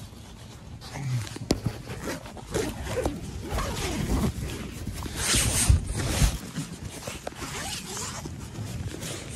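A tent zipper being pulled open in a run of short rasping strokes, mixed with the rustle of nylon tent fabric and sleeping gear being shifted.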